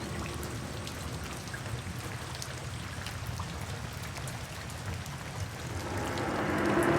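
Steady rain falling, with scattered drops pattering.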